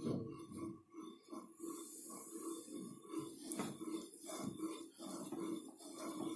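Wooden spatula stirring thick custard in a steel saucepan: faint, irregular soft scrapes and knocks against the pan, one or two a second.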